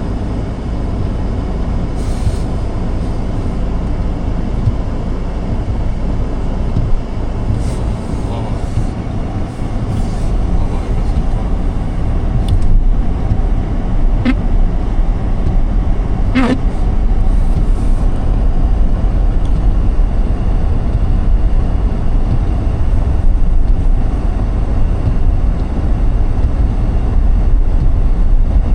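A car driving, with a steady low rumble of road and engine noise that grows a little louder partway through. A couple of brief clicks or knocks come about halfway through.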